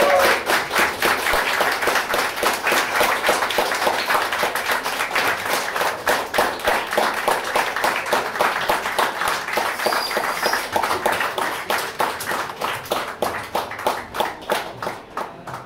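Audience applauding, many hands clapping irregularly, thinning out and dying down near the end.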